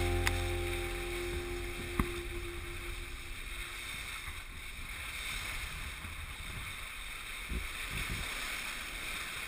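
Wind and water rushing past a Westsail 32 sailboat under way: a steady hiss, with one sharp knock about two seconds in and a few low thuds near the end. A music track fades out at the start.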